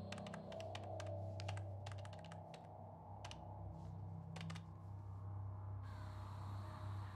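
Typing on a computer keyboard: irregular runs of key clicks over a low steady hum. The clicks stop about two-thirds of the way through.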